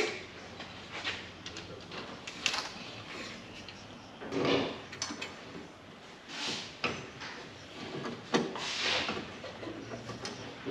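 Metal parts being handled and fitted at the front of a car: scattered clicks and light knocks with a few short scraping swishes as an intercooler and its pipework are offered up and put in place.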